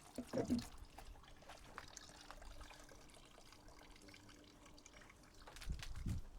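Faint, irregular crackling of a small campfire as burning newspaper catches the apple-tree twigs, with a soft low thump near the end.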